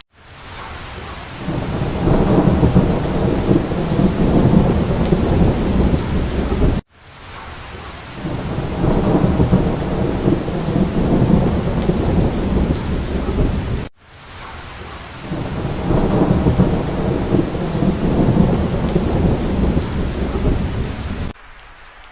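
Thunder rumbling over steady rain, three times in a row. Each rumble builds over a second or two, lasts about seven seconds and cuts off abruptly, like the same recording repeated.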